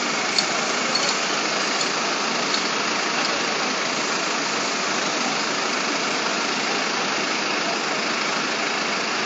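Fire engine's engine running steadily to drive its water pump, which feeds a hose line: an even, unbroken engine and pump noise.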